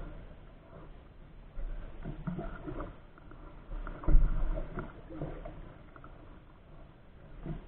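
Canoe paddle strokes splashing and pulling through calm water alongside the hull, one every second or two, the strongest about four seconds in.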